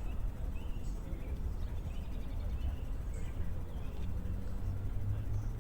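Urban park ambience: a steady low rumble with faint, scattered bird chirps, and a low hum building near the end.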